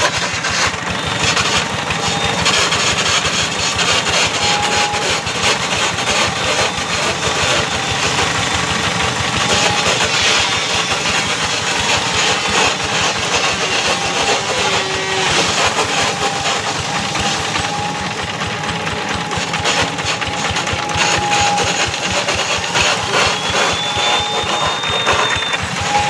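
Simple homemade wood lathe running steadily as it turns a long coconut-wood (glugu) post. It makes a loud, even machine noise with a fast rattle.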